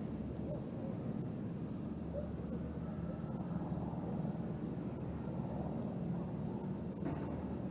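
Night ambience: a steady, high-pitched insect drone over a low, even rumble, with a few faint short calls now and then.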